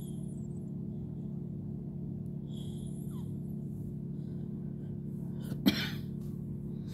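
Steady low hum, with one sharp knock about five and a half seconds in.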